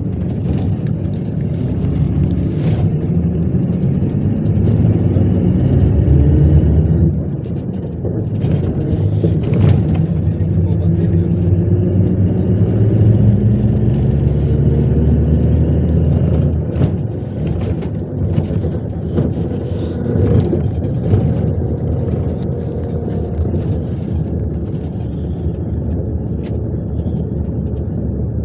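Diesel engine of a MAZ-103 city bus heard from inside the cabin while under way, rising in pitch as the bus accelerates, dropping sharply about seven seconds in at a gear change, then climbing again, over steady road and tyre noise.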